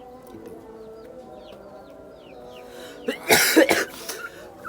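Chicks peeping softly for the first couple of seconds. Then, about three seconds in, a man coughs hard several times in quick succession, a feverish cold's cough.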